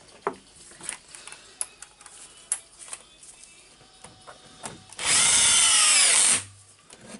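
Cordless drill-driver with a hex bit driving a bolt into the housing of an SDS-max rotary hammer. Its motor whines once for about a second and a half, then stops. The drill only runs the bolt down; it is not used for the final tightening. Before that come a few light clicks as the parts and bit are handled.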